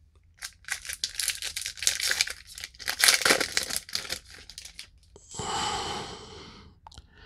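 A baseball card pack's wrapper being torn open and crinkled: a dense run of crackles for about five seconds, then a smoother, steadier rustle near the end.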